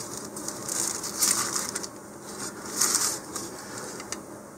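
Thin plastic model-rocket parachute crinkling and rustling as it is handled, in a few short bursts, with some light clicks.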